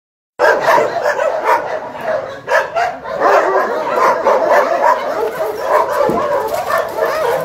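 Many dogs barking and yipping at once in an unbroken, overlapping shelter chorus, starting abruptly about half a second in.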